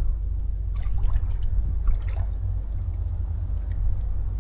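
Shallow water trickling and splashing lightly in small irregular bits, over a steady low rumble of wind on the microphone.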